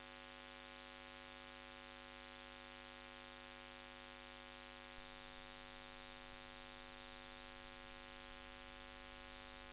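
Faint, steady electrical hum and hiss made of many fixed tones: noise on a PTZ security camera's audio line with no real sound picked up. A faint click comes about five seconds in, and the lowest hum turns rougher after it.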